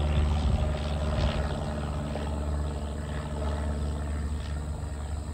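Aircraft engine drone: a steady low hum with several held tones that slowly fades as the aircraft moves away.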